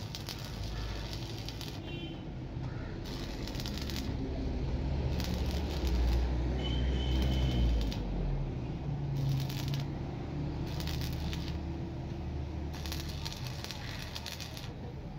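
Stick (shielded metal arc) welding on steel: the electrode's arc crackling and sizzling in stretches of a second or two that come and go, over a steady low hum.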